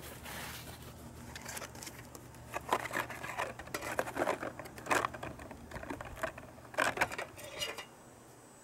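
Aluminium-foil windscreen being handled and stood up around a small alcohol stove: irregular crinkling with a few light taps, busiest in the middle and fading near the end.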